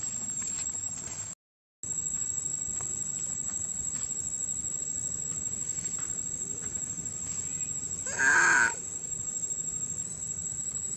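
Steady outdoor background hiss with a thin, high, steady whine, cut by a half-second gap of silence just over a second in. About eight seconds in, one short, loud call from a macaque, lasting about half a second.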